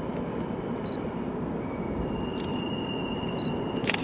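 Low, steady rumble of an approaching diesel freight locomotive. A thin, steady high tone joins about halfway and stops near the end, just as a sharp click sounds.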